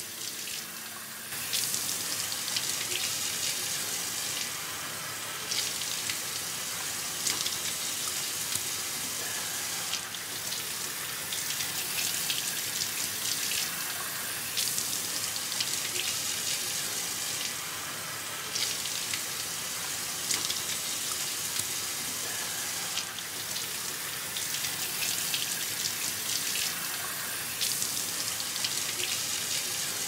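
Water running from a mixer tap into a sink and splashing over hands being washed under it. The flow grows louder about a second and a half in and then runs on, rising and falling a little with the splashing.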